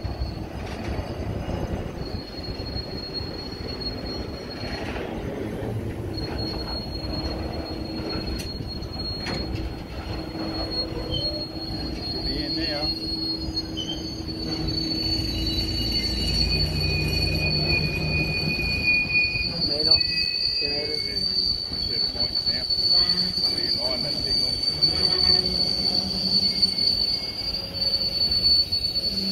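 Freight train's hopper wagons rolling past with the wheels squealing in a steady high-pitched tone over the low rumble of the bogies on the rails. A second, lower squeal joins in for a while midway.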